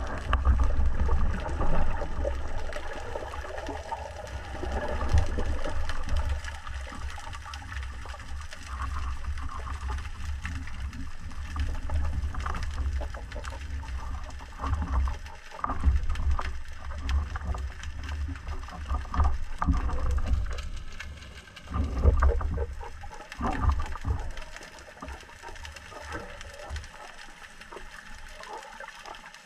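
Underwater noise picked up by a camera on a speargun: a low, uneven rumble of water moving past the housing as the spearfisher swims, swelling and fading in surges, with scattered knocks. It quietens in the last few seconds as he nears the surface.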